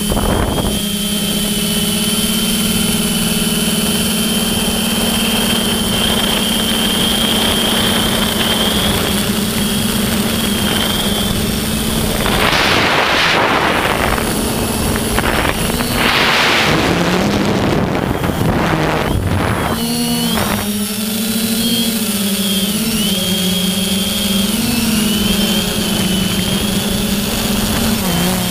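FPV drone's electric motors and propellers whining steadily in flight, with two gusts of wind noise on the microphone about halfway through; toward the end the motor pitch wavers up and down as the throttle changes.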